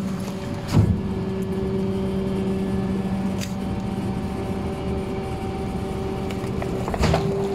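Rear-loader garbage truck running its compaction cycle: the engine and hydraulic pump hum steadily as the packer blade comes down over the bagged trash in the hopper. There is a knock about a second in and another near the end.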